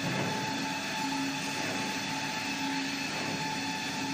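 XY AI 280 automatic toilet paper log saw running: a steady mechanical hum with a low tone that comes and goes.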